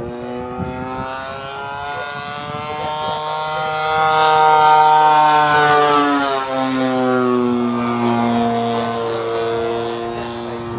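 The 55cc two-stroke gas engine and propeller of a giant-scale RC Extra 300 aerobatic plane, running steadily as the plane flies past overhead. It is loudest and highest about halfway through, then its note drops as it goes by.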